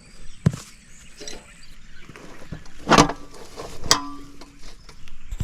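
Knocks and clanks of tools and parts being handled while a commercial floor scrubber is taken apart. A light knock comes early, then two sharp clanks about three and four seconds in, the second ringing briefly.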